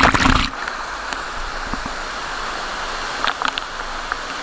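Steady rush of falling monsoon water from a waterfall or stream, with a louder noisy surge in the first half second.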